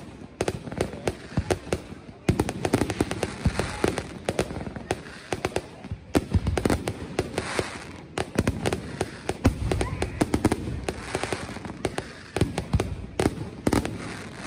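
Fireworks display: a dense, continuous run of bangs and crackling from aerial shells bursting overhead, with no pause.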